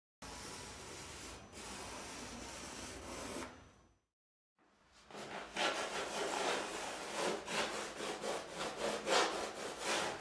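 Hand rubbing and stroking pastel onto a canvas: quick scratchy back-and-forth strokes, about four a second, starting about halfway in. Before them there is a stretch of steady faint hiss that cuts off into silence.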